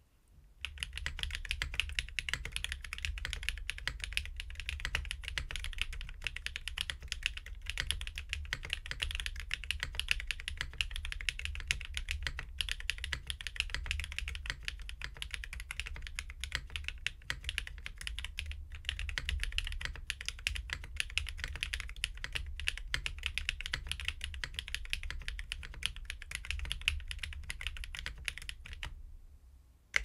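Steady fast typing on an F2-84 v2 mechanical keyboard with an aluminium plate, stock BSUN BCP switches, GMK Dracula keycaps and lubed AP TX stabilizers. It starts about half a second in and stops shortly before the end.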